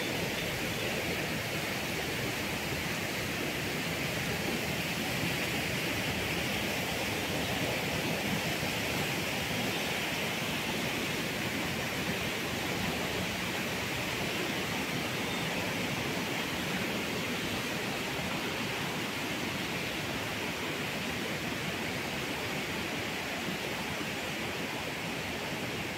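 Steady rushing of river water, an even hiss that does not change in level.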